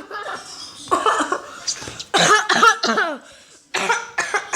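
A person performing an exaggerated, theatrical cough: three loud coughing bouts, some drawn out with a sliding voiced sound.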